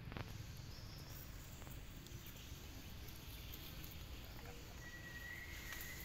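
Faint outdoor ambience: a steady low rumble and hiss, with a thin, steady high whistle lasting about a second near the end.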